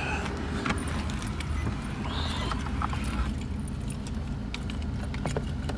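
Car running, heard from inside the cabin as a steady low hum, with scattered clicks and rustles from handling close to the phone.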